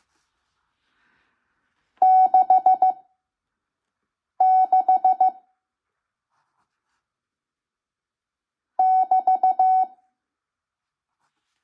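Morse code (CW) practice tones from an ARRL 5 words-per-minute code practice recording: three letters, each a quick run of dots and dashes keyed on one steady beep pitch, with long silent gaps between the letters.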